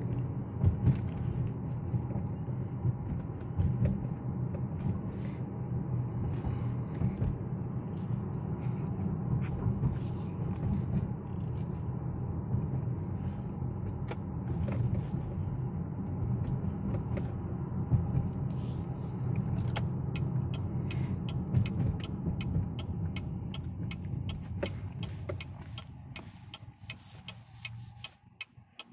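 Cabin noise of a 2019 GMC Terrain Denali with a 2.0-litre turbo engine under way: a steady low road and drivetrain rumble with occasional light knocks. The rumble dies away over the last few seconds as the SUV slows, and a regular ticking comes up.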